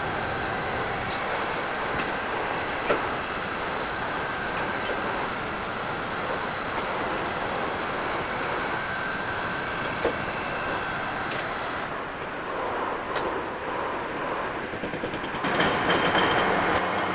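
Metal lathe running steadily while cutting a long square thread, with coolant water kept flowing over the work and the cutting tool; a couple of faint clicks, and the noise grows louder and fuller with a low hum near the end.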